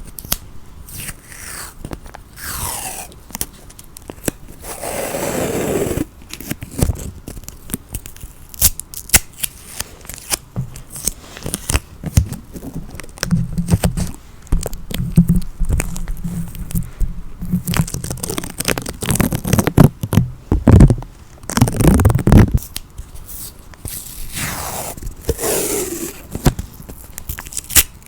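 Sticky tape being peeled off a surface in several long pulls whose pitch sweeps downward, with many sharp clicks and some low rubbing from handling the tape in between.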